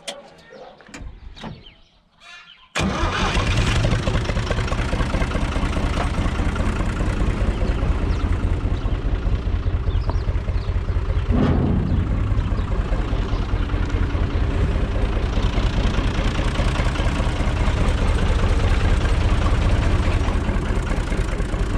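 UTB 445 tractor's diesel engine starting about three seconds in, catching at once, then idling steadily. A few light clicks come before it starts.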